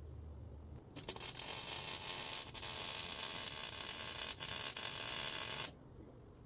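MIG welding arc sizzling as a weld is laid on a steel nerf-bar tube, starting about a second in and cutting off near the end, with two brief breaks in the arc.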